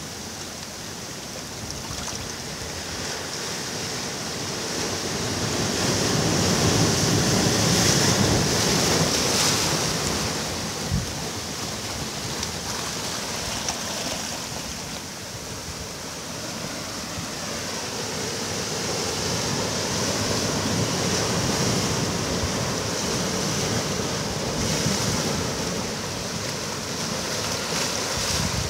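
Sea waves washing onto a beach, the surf swelling and easing over several seconds, with some wind on the microphone. A brief tick sounds about eleven seconds in.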